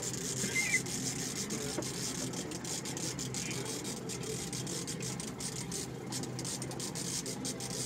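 Fishing reel being worked, its gears and ratchet clicking fast and steadily, over a steady low hum from the boat.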